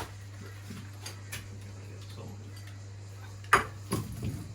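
Metal tools and engine parts clinking during dismantling: a few light ticks, then one sharp metal clank about three and a half seconds in, followed by a short rattle.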